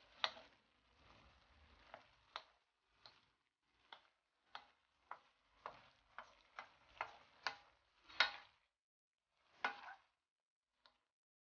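Wooden spoon stirring chopped beef offal in a metal wok, each stroke knocking and scraping against the pan: irregular clacks about one to two a second, thinning out near the end.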